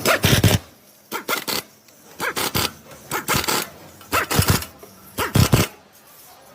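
Repair work on a car engine mount: sharp metallic knocks and clatter in six quick clusters about a second apart, each cluster two to four hits with a low thud.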